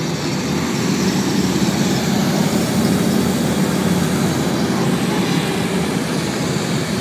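A column of police motorcycles riding past, their engines making a steady, dense rumble that grows louder about a second in as the bikes come close.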